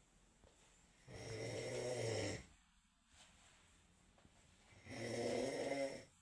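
A person snoring: two snores about four seconds apart, each a little over a second long, with a rough fluttering rattle and quiet breathing-level sound between them.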